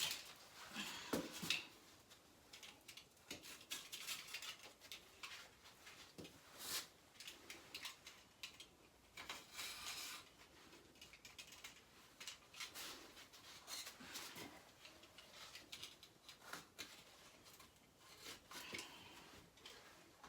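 Intermittent rustling and scraping of glass fiber wallcovering being handled and worked against the wall, in short irregular strokes.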